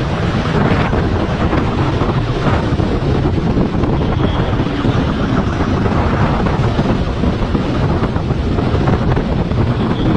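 Wind buffeting the microphone of a motorcycle moving at speed, with the motorcycle running underneath as a steady rush of noise.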